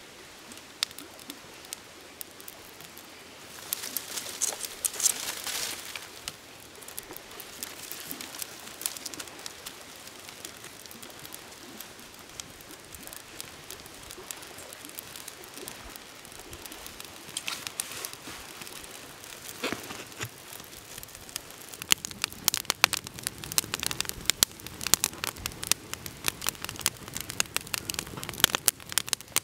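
A small campfire of birch bark and dry twigs catching, with a brief hiss about four seconds in, then crackling and popping that grows denser and louder through the last third as the kindling bursts into flame.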